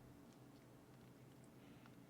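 Near silence: faint room tone and microphone hiss, with a few tiny clicks.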